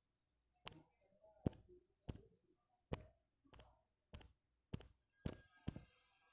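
About nine or ten sharp, separate taps at uneven intervals, roughly one every half second to second: a fingertip tapping a phone's touchscreen.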